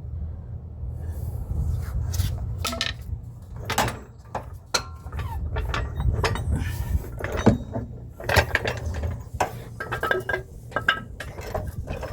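Irregular metal clinks and knocks of hand tools and parts being worked on a truck's front differential, a string of sharp taps, a few of them ringing briefly, over a steady low rumble.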